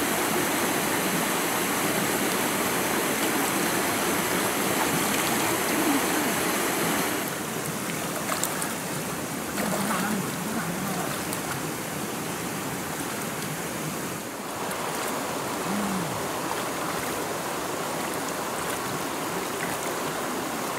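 Fast-flowing river rushing steadily past the bank as a continuous hiss of water. The high hiss drops off about seven seconds in.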